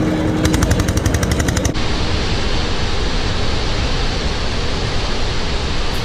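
Two-wheel walking tractor's single-cylinder diesel engine chugging with a fast, even putter, cut off abruptly about two seconds in. The steady rushing roar of a large waterfall follows.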